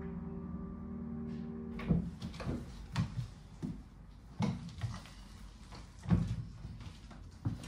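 A sustained piano chord rings, then cuts off about two seconds in. It is followed by a series of irregular knocks and thuds, about ten in all, the loudest soon after the chord stops and again about six seconds in.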